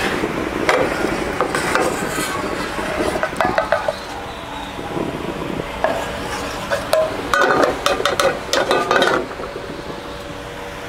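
Spatula stirring thick batter in a stainless steel bowl, scraping around the sides, then cookware being handled at the stove, with a cluster of clinks and knocks about seven to nine seconds in.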